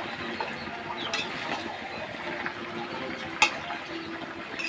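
Spatula stirring a thick vegetable curry in a metal kadai. The spatula knocks sharply against the pan twice, once about a second in and louder at about three and a half seconds.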